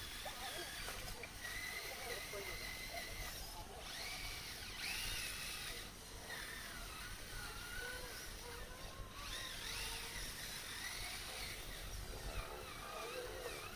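High-pitched whine of a radio-controlled construction model's small electric drive motors, the pitch holding steady for a while, then sliding up and down as the throttle changes.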